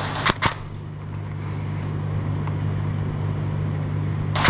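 An airsoft gun firing. Two sharp clicks sound just after the start, and near the end a rapid string of shots about ten a second, over a steady low hum.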